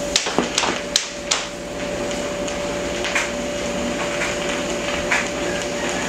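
Four sharp footsteps in the first second and a half, then a steady hiss of room noise with a faint hum.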